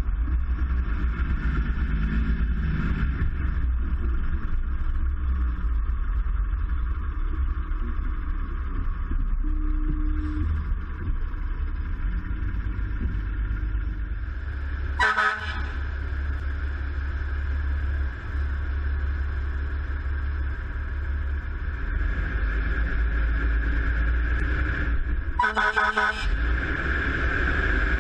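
Seagrave fire engine running with a steady low rumble, and two short horn blasts, about halfway through and again about ten seconds later.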